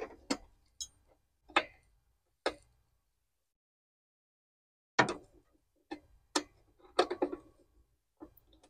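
Sharp, irregular clinks and clacks of a wrench on the bolts of a stopped John Deere 5060E tractor engine's cooling parts, several in quick succession, then a pause of about two seconds, then more.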